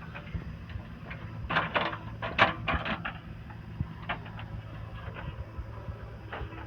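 Diesel machinery running steadily at a low hum, with a burst of clattering and scraping about one and a half to three seconds in and a few lighter knocks later, as a backhoe loads mud and gravel.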